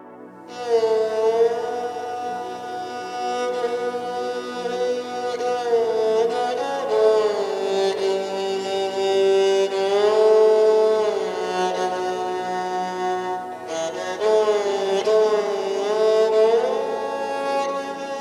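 Instrumental music: a melody with sliding, ornamented notes over a steady sustained backing, coming in about half a second in.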